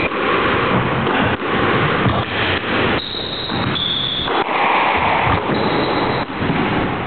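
Squash rally: a few sharp ball strikes off rackets and walls, with short high shoe squeaks on the court floor, over a loud constant rush of noise.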